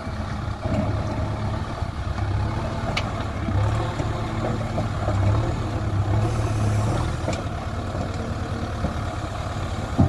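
JCB 3DX backhoe loader's diesel engine running steadily while the backhoe arm works its bucket in loose stones, the engine note swelling and easing with the load. Two short sharp knocks sound about three seconds in and again near seven seconds.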